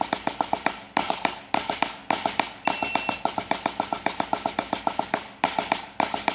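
Snare drum played with sticks: a fast, even run of strokes, about eight a second, with louder accents at regular spacing. It is a rudiment played in the open/close technique with one hand's strokes delayed.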